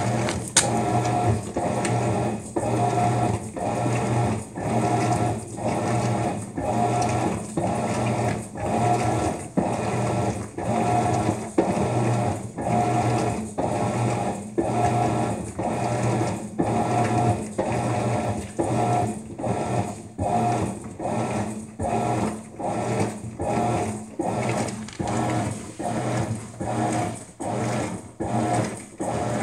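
Maytag MVWX655DW1 top-load washing machine agitating in its deep water wash cycle: the motor hums and drives the wash action back and forth in even strokes about once a second, churning the water and load.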